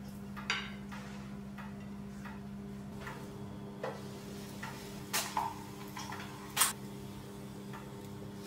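Scattered light clicks and knocks of kitchen handling: a knife scraping filling across a plate, then a wrap being laid on an electric contact grill and its lid handled, the sharpest knock about two-thirds of the way through. A faint steady hum runs underneath.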